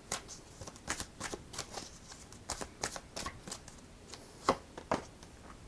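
A deck of tarot cards being shuffled by hand: a run of soft, irregular riffling snaps, with two sharper snaps a little before the end.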